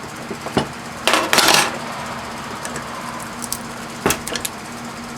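Scattered metal clanks and knocks as a small transformer is handled in a bench vise after being hacksawed, with a short scraping rattle about a second in.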